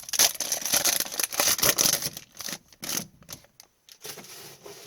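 Foil hockey card pack wrapper crinkling and tearing as it is ripped open. The crackle is dense for about two seconds, then thins to scattered clicks and rustles as the cards are handled.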